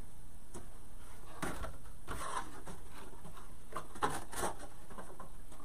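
Light rustling and a few soft knocks of ribbon being pulled off its roll and handled on a craft table, with a sharper click about four seconds in.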